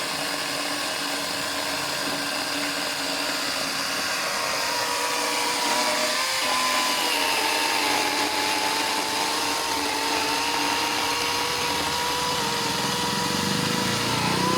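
DCK KDML250BM cordless brushless electric chainsaw running steadily with a motor whine, cutting ketapang (tropical almond) wood. About six seconds in, its pitch sags slightly and stays lower, as the chain takes the load of the cut.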